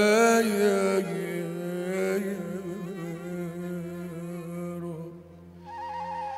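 A male voice singing Arabic religious inshad into a microphone: long, ornamented held notes, strongest in the first second and then softer. An instrumental melody comes in near the end.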